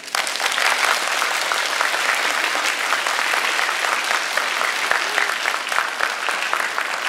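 Audience applauding, a dense, steady clapping that begins right as the string orchestra's music ends.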